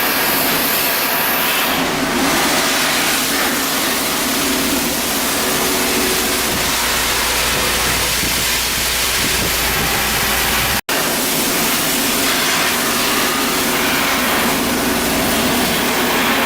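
Steady loud noise of shipyard machinery at work, a dense hiss with no clear rhythm, a deeper hum joining partway through. It breaks off for an instant about eleven seconds in.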